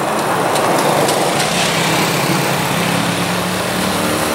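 Small motorcycle engine running close by, a steady engine note over general road traffic.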